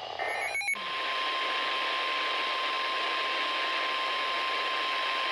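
NOAA Weather Radio alert starting: a brief warble of digital header data near the start, then the steady 1050 Hz warning alarm tone, heard over loud radio static hiss.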